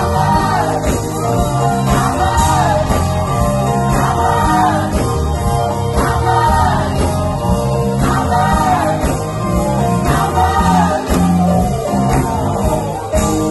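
Gospel vocal group singing live with band accompaniment and a steady bass line underneath.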